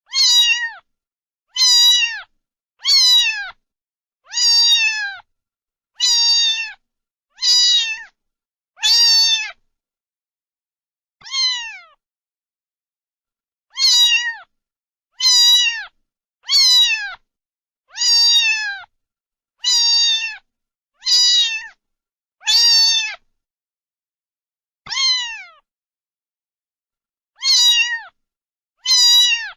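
Domestic cat meowing over and over, about eighteen meows roughly a second and a half apart, each dropping in pitch at its end, with a few longer pauses between runs.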